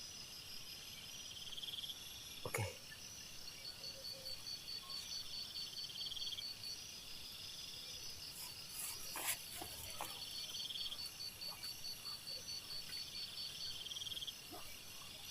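Night insects trilling steadily in high, rapid pulsing phrases that repeat every couple of seconds. A short sharp knock sounds about two and a half seconds in and another about nine seconds in.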